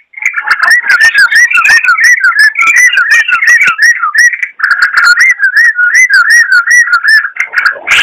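Yellow-vented bulbul (trucukan) singing a fast run of short, looping whistled notes, several a second, with a brief break about halfway through.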